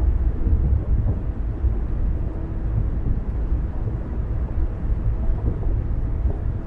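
Steady low rumble of a car driving at a constant pace: road and running noise with a faint hum that comes and goes.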